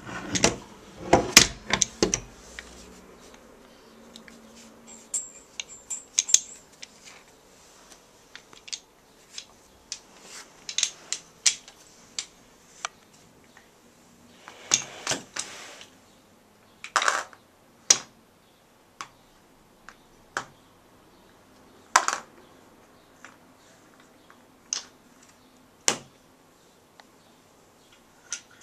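Small blocks of a desk block calendar clacking and knocking together and against a hard floor as a toddler handles and drops them: irregular sharp clicks, with a quick flurry in the first two seconds and scattered knocks after.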